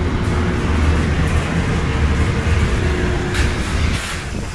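Portable Flagro construction heater running: a steady, loud low rumble of its burner and blower fan, with two short hisses near the end.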